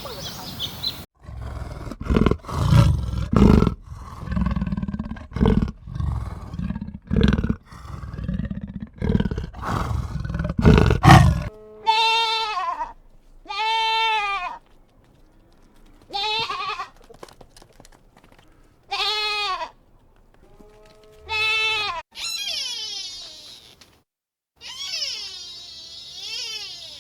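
Farm animal calls: a run of loud, low, rough calls in quick succession, then a series of short pitched calls that rise and fall, roughly one every two seconds, ending in denser wavering calls.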